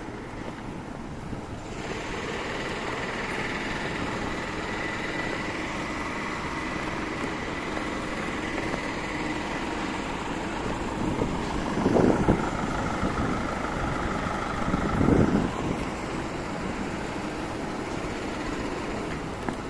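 Small community bus idling at the stop: a steady engine hum with a faint whine. About 12 and 15 seconds in, two short louder bursts of low rumble stand out.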